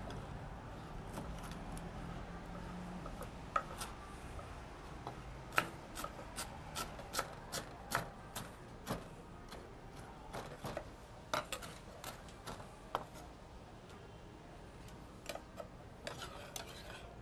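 Kitchen knives chopping fresh parsley and vegetables on cutting boards: irregular sharp taps of the blades striking the boards, over a low steady background hum.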